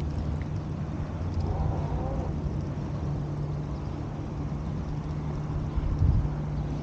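An engine running steadily with a low, even hum, and a brief louder low rumble about six seconds in.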